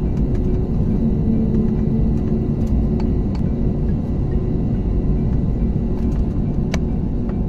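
Jet airliner heard from inside the cabin while taxiing: a steady low rumble of engines and rolling wheels with a faint hum on top, and a sharp click near the end.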